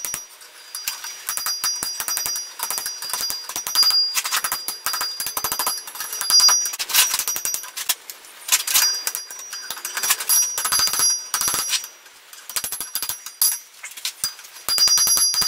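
Blacksmith's hammer striking hot iron on an anvil in quick series of blows, the anvil ringing with a high, bell-like tone between strikes.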